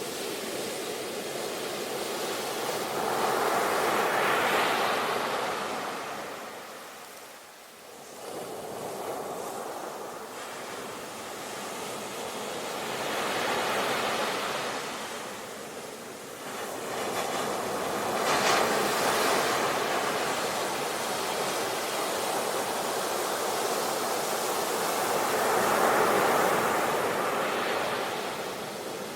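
Sea waves, the surf rising and falling in four slow swells with a brief lull about a quarter of the way in.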